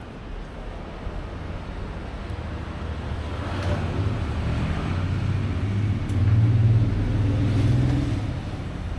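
A motor vehicle passing on a city street: its low engine rumble grows from about three seconds in, is loudest around six to eight seconds, then eases off, over steady background street noise.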